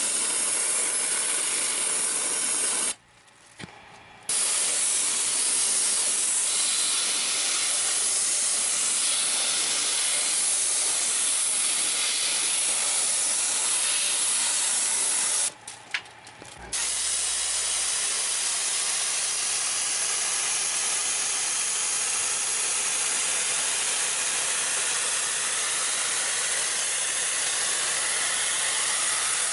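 Pressurized water spray hissing steadily, washing air conditioner parts. It cuts out briefly twice: about three seconds in and again about fifteen seconds in.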